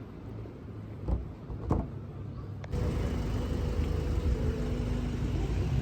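Low vehicle rumble with two short knocks, then a sudden jump to a louder, steadier engine rumble with a hum.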